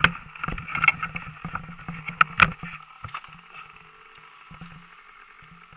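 Knocks and clattering of a dirt bike being handled in a grassy ditch, thickest over the first three seconds with two sharp loud knocks a little after two seconds, then thinning out over a steady low rumble.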